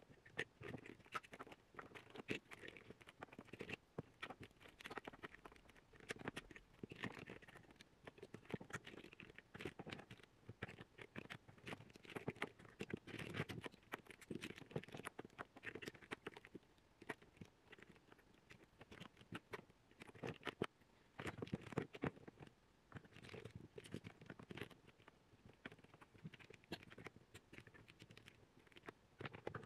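Faint, scattered clicks and scratches of small plastic makeup containers being handled and moved about.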